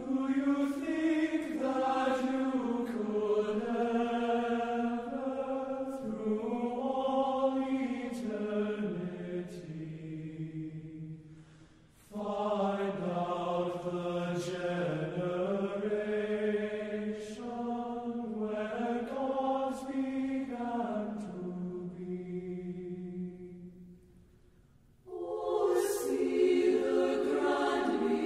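Voices singing a slow, drawn-out melody in long sustained phrases, like a choir or chant, fading out briefly twice, near the middle and near the end, before the next phrase begins.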